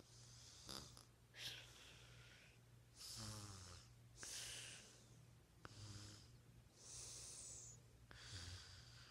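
A girl's soft snoring and breathing: about six slow breaths a second or so apart, faint, one of them with a low buzzing snore.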